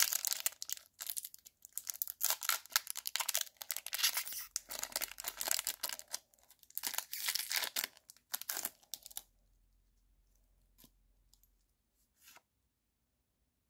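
Foil wrapper of a Pokémon trading-card booster pack being torn open and crinkled in the hands: a dense run of crackling rips for about nine seconds. After that it goes almost quiet, apart from two faint brief sounds as the cards are handled.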